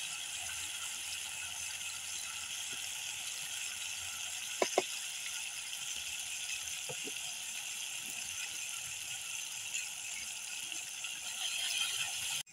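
Spice paste frying in hot oil in a wok over a wood fire: a steady sizzle, with two sharp clicks about a third of the way in.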